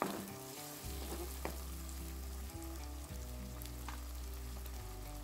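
Onion-tomato masala sizzling in hot oil in a wok, with a few light knocks of a wooden spatula against the pan. Soft background music with low steady notes comes in about a second in.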